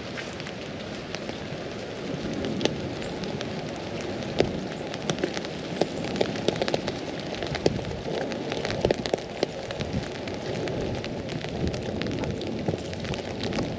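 Rain falling on an umbrella overhead: a dense, irregular patter of sharp drop ticks over a steady rush of rain.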